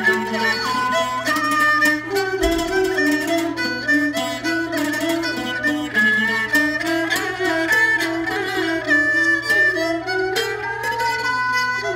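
Thai jakhe, a three-string floor zither, plucked with a plectrum in quick repeated strokes, playing together with a Thai two-string bowed fiddle that holds long melody notes.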